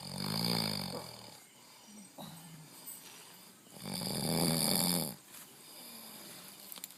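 A sleeper snoring loudly, two rattling snores about four seconds apart with quieter breaths between them.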